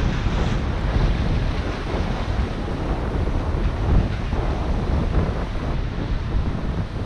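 Wind buffeting the microphone over surf washing against the rocks.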